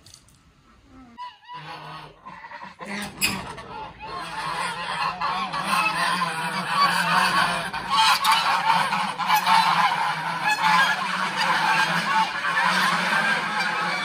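A flock of domestic geese honking together in a dense, continuous clamour that swells from about four seconds in and stays loud.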